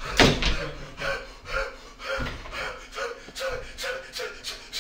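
A man gasping in horror. One sharp, loud gasp comes first, then short rapid breaths at about three a second.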